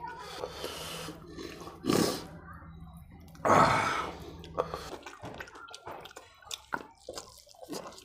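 A person eating rohu fish curry by hand: two loud wet slurps about two and three and a half seconds in, then quick lip smacks and mouth clicks while chewing and sucking on fish bones.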